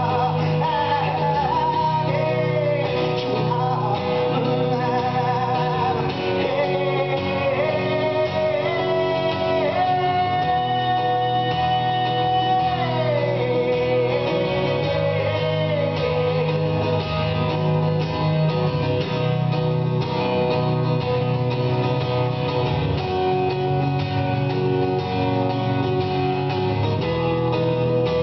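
Acoustic guitar strummed steadily, with a man's voice singing long, sliding held notes over it for roughly the first half; after that the guitar plays on alone.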